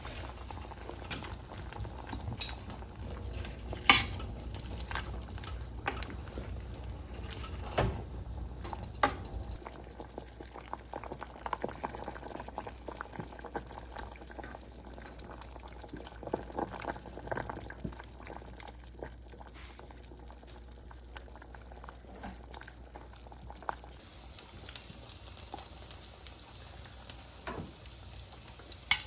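Pot of broth simmering on the stove, with scattered clinks and knocks of utensils and cookware, the loudest about 4 and 8 seconds in.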